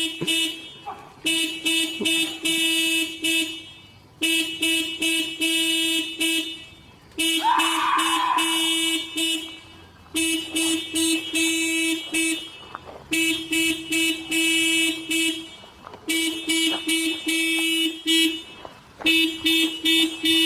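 1999 Toyota Corolla's car alarm sounding the horn in quick pulses, in bursts of about two and a half seconds separated by short gaps, over and over.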